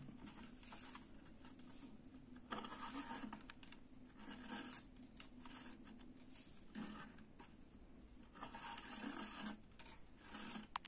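Faint scratching and rustling of waxed thread rubbing and being pulled tight as macramé knots are tied by hand, in several short spells.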